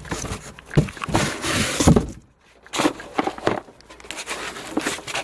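Cardboard box and packing material being handled: irregular rustling with a few knocks as a benchtop multimeter is worked out of its tight packaging.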